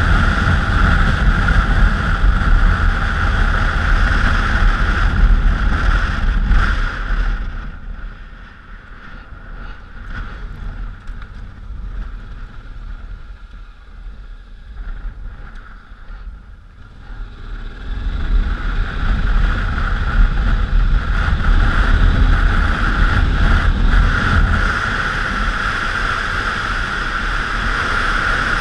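1999 Honda Africa Twin's 750 cc V-twin engine running under way, mixed with wind noise on the camera microphone. The sound drops much quieter from about eight seconds in, then rises again at about eighteen seconds.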